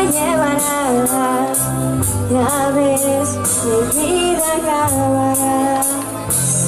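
A young woman singing a ballad into a microphone, holding long wavering notes over band accompaniment with steady bass notes and cymbal or shaker strokes about twice a second.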